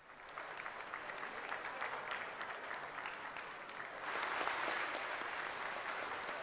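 A group of people applauding. Scattered separate claps at first, swelling into fuller, louder applause about four seconds in.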